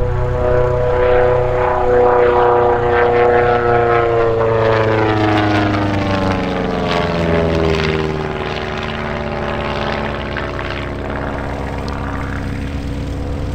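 Rutan Long-EZ light aircraft flying past with its rear-mounted pusher propeller and engine droning steadily. The drone drops in pitch through the middle of the pass as the plane goes by, then carries on lower and quieter as it moves away.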